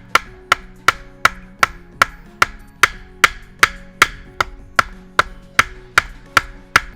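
A kitchen knife chopping food on a wooden cutting board: steady, even strokes, about three a second, that stop near the end.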